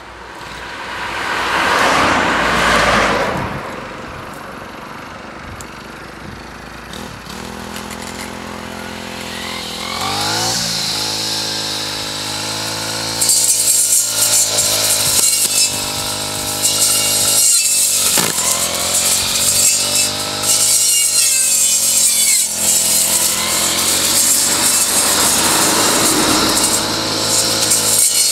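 A car passes close by in the first few seconds. Then a brushcutter engine idles, revs up about ten seconds in, and from about thirteen seconds runs at high revs as its grass-cutting blade mows grass, easing off the throttle briefly now and then.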